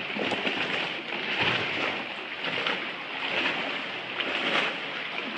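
Kayak paddle strokes dipping and splashing in the water, swelling about once a second over a steady hiss of moving water.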